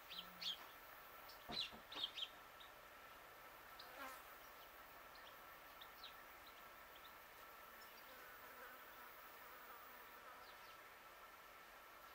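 Faint yard ambience: a steady high insect-like hum, with a few short high chirps from small birds in the first couple of seconds and a single click about a second and a half in.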